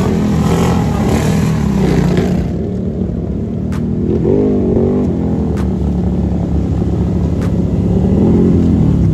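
Can-Am ATV engine revving hard while the quad spins through shallow muddy water, with a hiss of spraying water for the first couple of seconds that then stops. The revs rise and fall again around the middle and near the end.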